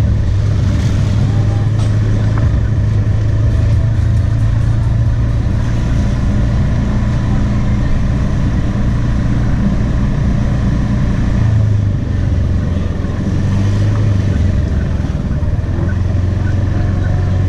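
Motorbike engine running steadily at low riding speed, heard from the moving bike, with a low, even drone that eases off briefly about two-thirds of the way through.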